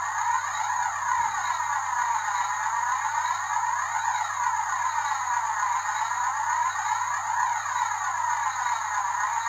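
Background electronic music: a steady synthesised tone with a sweeping, whooshing pattern that repeats about every second and a half, over a low steady hum.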